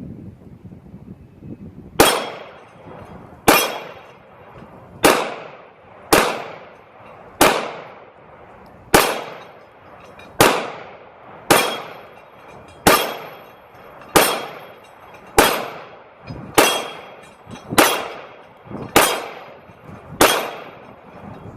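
CZ P10-C 9mm pistol firing fifteen shots at a slow, steady pace of about one every one and a half seconds, each trailing off in a short echo. These are 115-grain Federal brass-cased rounds, fired slowly to test whether the slide locks up.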